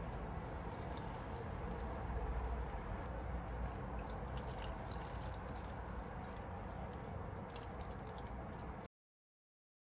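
Water trickling and dripping, with small scattered clicks over it, stopping suddenly near the end.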